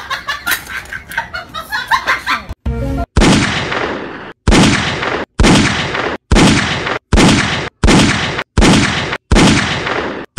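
An edited-in soundtrack: choppy music for the first couple of seconds, then a loud noisy blast sound effect looped about eight times. The blasts come roughly once every 0.8 seconds, and each one cuts off abruptly.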